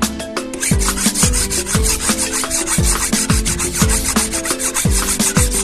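Background music with a steady beat: a deep drum about twice a second, held keyboard chords, and fast scraping percussion over the top.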